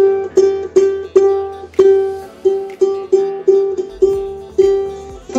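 A single open string of a Kadence 24-inch mahogany concert ukulele plucked about a dozen times in a row, each note ringing at the same pitch, while it is being tuned by ear against a clip-on tuner.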